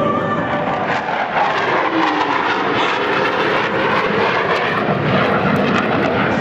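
Military jet aircraft flying past, a loud, steady engine rush with a tone that falls in pitch about two seconds in as it passes.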